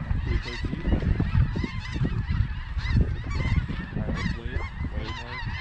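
Snow geese calling: a dense chorus of many short, high, overlapping honks from a flock, over a low wind rumble on the microphone.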